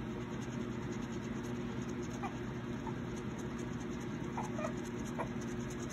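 Coin scratching the coating off a scratch-off lottery ticket, faint, over a steady low hum, with a few faint short chirps.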